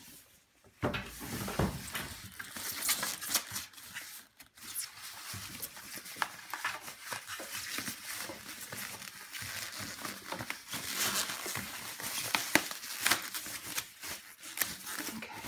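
Thin plastic wrapping bag crinkling and rustling as hands pull and gather it off a coffee maker. The crackling starts about a second in and carries on irregularly.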